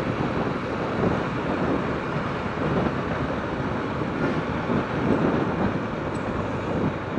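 Wind rushing over the microphone on a moving motorcycle at about 40 km/h, mixed with the motorcycle's engine and tyre noise on the road.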